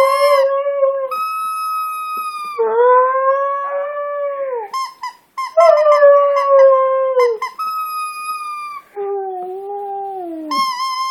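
Husky howling in long, arching notes along with a steady, high-pitched squeal from her toy ball, the two taking turns and overlapping. Near the end comes a lower howl that falls away.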